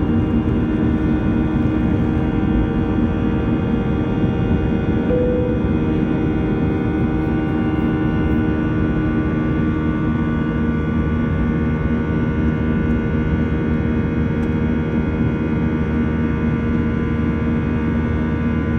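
Airbus A320's turbofan engines at climb power, heard inside the cabin over the wing during the initial climb after takeoff: a loud, steady drone with several steady tones running through it.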